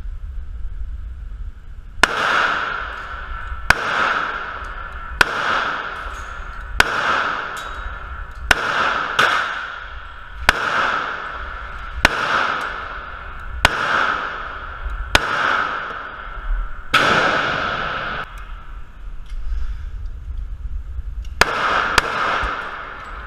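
Kimber Custom II Tactical HD 1911 pistol firing .45 ACP in a string of about a dozen evenly paced shots, roughly one every second and a half. Each bang echoes for about a second in an indoor shooting range. After a pause of a few seconds, two quicker shots come near the end.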